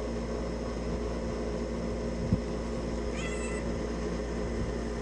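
Domestic cats play-fighting: one cat gives a short meow about three seconds in, after a single soft knock, over a steady room hum.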